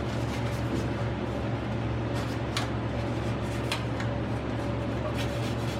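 Steady low hum with a few light clicks and scrapes, from hands working at a computer processor while old thermal paste is cleaned off.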